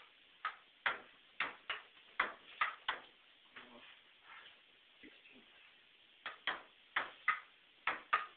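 Ping-pong ball rally played with stools instead of paddles: the ball clicks on the table and is knocked back by the stools in a quick string of ticks, about two a second. The ticks thin out in the middle, then pick up again.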